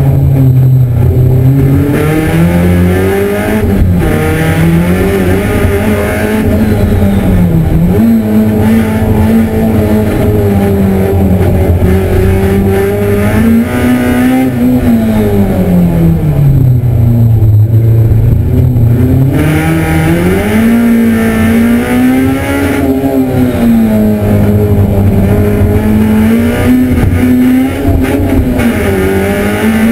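Race car's engine heard from inside its stripped, roll-caged cabin while it is driven hard on a track. The pitch keeps climbing and dropping as it speeds up and slows for corners, with a long fall and climb back about halfway through.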